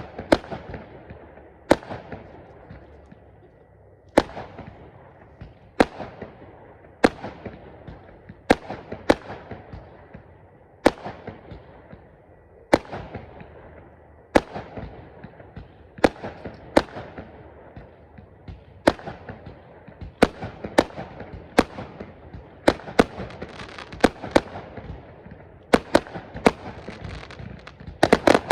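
Fireworks display going off: sharp bangs every second or two, each followed by a long echoing tail, coming faster and closer together near the end.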